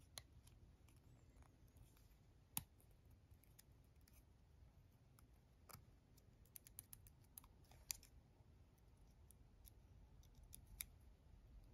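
Near silence with a handful of faint, sharp clicks scattered through it. The clicks come from a Life-Like slot car chassis and its bent metal pickup shoe being handled and fitted by hand.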